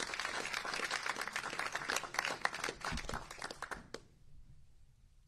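A small crowd applauding with dense hand-clapping in a room, which stops fairly suddenly about four seconds in.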